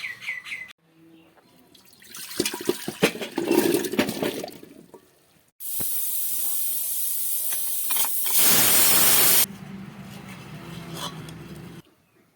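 Kitchen sounds: a few seconds of clattering and knocking, then water running steadily from a tap, briefly at full flow before it is turned lower.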